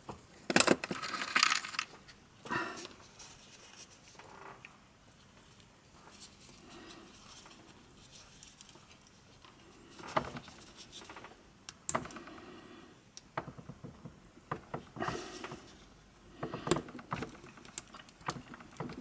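Gloved hands working the plastic headband of JBL Tune 510BT headphones with wooden toothpicks, pushed in to free the end cap's latches. The sound is scattered small clicks, taps and rustles, with a louder cluster about half a second in and several more in the second half.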